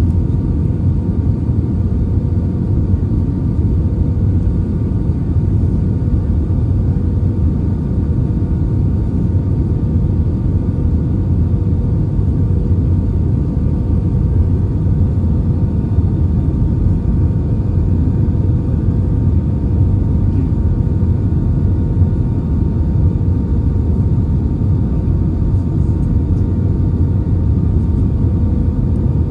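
Steady cabin noise inside an Airbus A320-family airliner descending on approach with flaps extended: a low, even rumble of the jet engines and airflow, with a faint steady hum over it.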